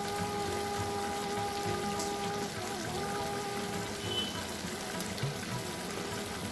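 Background music of long held notes over the steady sizzle of muri ghonto (fish head with rice and potatoes) cooking in a kadai.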